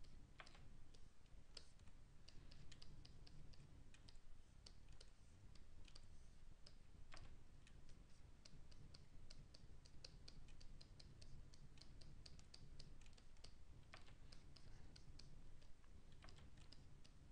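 Faint, irregular clicking of a computer keyboard and input devices, at times several clicks a second, over a low steady room hum.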